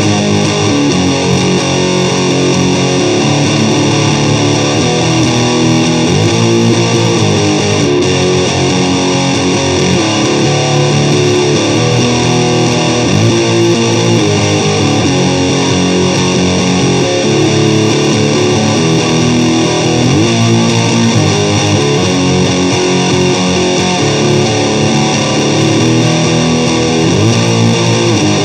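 Guitar playing loud, continuous music with notes sliding in pitch.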